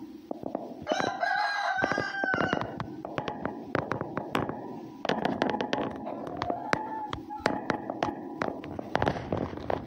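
A red fox crunching and gnawing on a bone or food, giving many sharp irregular clicks. About a second in, an animal's long call with several pitches, like a crow, lasts about a second and a half.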